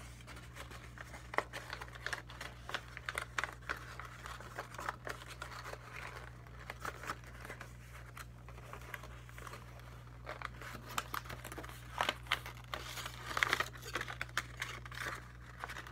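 A sheet of paper being handled and folded by hand, crinkling and rustling in irregular crackles, most densely a little before the end.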